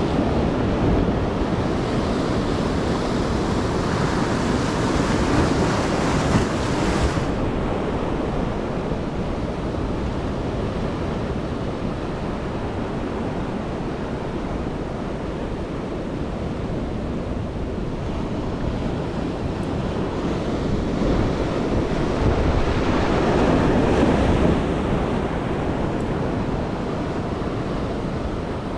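Ocean surf washing in steadily, with wind rumbling on the microphone. The waves swell louder twice, in the first few seconds and again a little past the middle.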